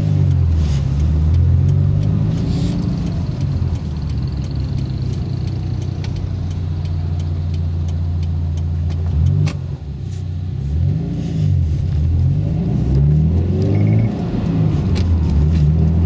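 Subaru WRX's turbocharged flat-four engine and exhaust heard from inside the cabin while driving. The engine note rises repeatedly under acceleration and drops back at each gear change. The exhaust is fitted with silencer inserts, so it stays subdued rather than booming.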